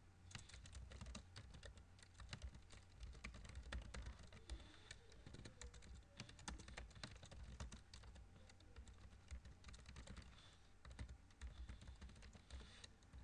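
Faint typing on a computer keyboard: a continuous run of quick, irregular keystroke clicks.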